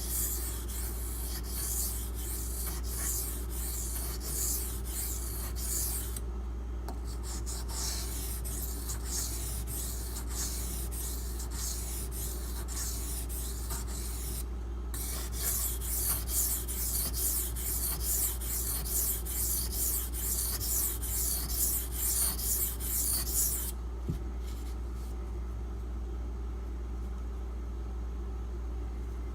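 Steel knife blade (8Cr13MoV) being stroked repeatedly across a coarse Beston 500-grit water stone, a dry-sounding scrape with each stroke. The strokes come in three runs with short pauses between them, then stop a few seconds before the end, leaving a low steady hum.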